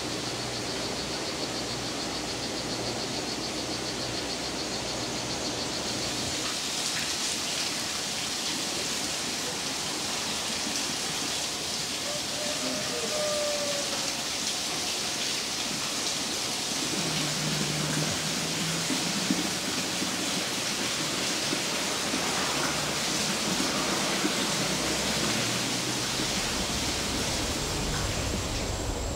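Steady, even rushing hiss, with a faint high pulsing trill during the first few seconds.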